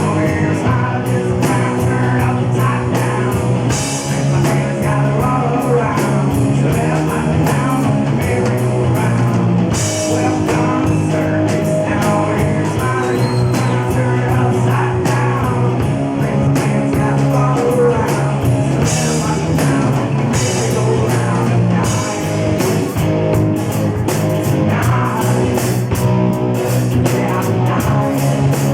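Live rock band playing loud, with electric guitar and drum kit and some singing.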